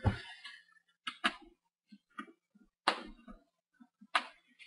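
A few sharp little clicks and taps, spaced about a second apart, from a small Phillips precision screwdriver working the screws out of a laptop's plastic screen bezel.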